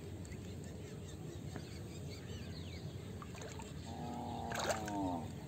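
Water trickling and sloshing softly as bamboo box fish traps are handled in shallow muddy water, with a few faint bird chirps. Near the end there is a short pitched call, lasting about a second and dropping in pitch at its end, with a sharp click.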